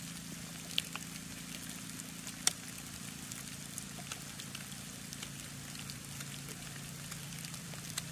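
Carbon-steel carving knife shaving bark off a wooden stick: faint scraping with a few sharp clicks of the blade, over a steady low hum.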